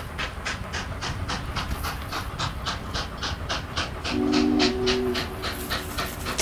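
Nickel Plate Road 765 steam locomotive standing with steam up, panting in a steady rhythm of about four strokes a second. About four seconds in, a chime whistle of several notes sounds once for about a second.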